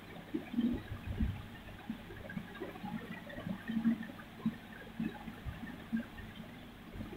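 Coloured pencil scratching on paper in short, irregular strokes as a small stem is drawn, with faint muffled knocks from the hand and paper.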